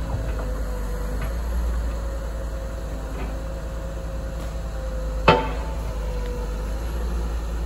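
Liebherr road-rail excavator's diesel engine running steadily with a constant tone over it, while the grapple works the logs: a few light knocks, then one sharp knock about five seconds in.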